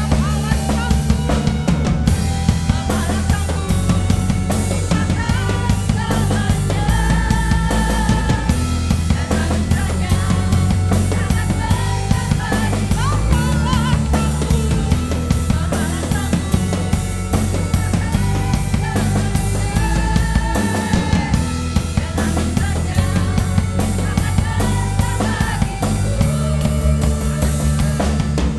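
Full band playing a worship song: a drum kit keeps a steady beat with bass drum and snare over a heavy bass guitar line, with sustained melody lines above.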